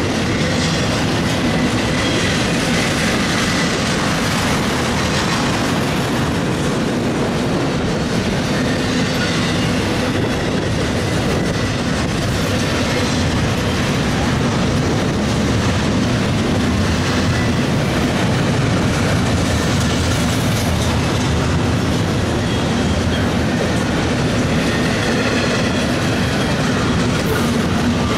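Intermodal freight train of double-stack container well cars and trailer flatcars rolling past at steady speed: a continuous loud rumble and clatter of steel wheels on the rails.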